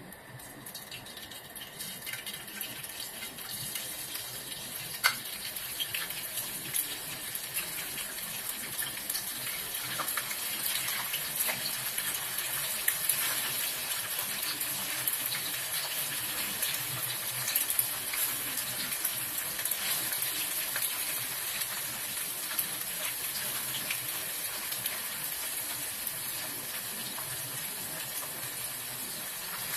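Bean curd sticks sizzling in hot oil in a wok, a steady hiss dotted with crackling spatters. The sizzle builds over the first few seconds as more pieces go into the oil.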